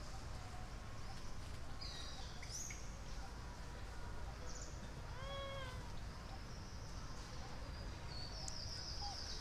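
Outdoor forest ambience with scattered high bird chirps, and one short call about five seconds in that rises and then falls in pitch, a young long-tailed macaque's coo.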